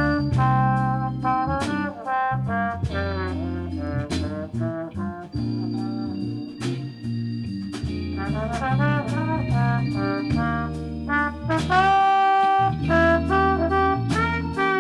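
Marine Corps band playing in a jazz style: trombones and trumpets carrying the tune over low bass notes and regular drum and cymbal hits.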